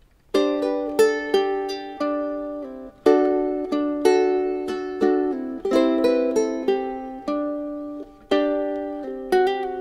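Solo ukulele played fingerstyle: a slow run of plucked chords and melody notes, each ringing and fading before the next. It starts about a third of a second in.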